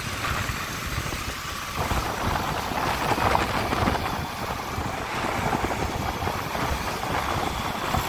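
A two-wheeler ridden at road speed: its engine running steadily under rumbling wind on the microphone, with highway traffic around.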